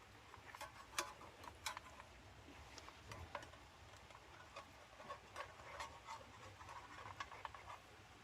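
Faint, irregular small clicks and pops, several a second, over a low background hum.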